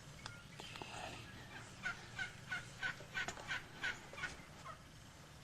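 Turkey yelping: a run of about ten short, evenly spaced calls lasting a little over two seconds.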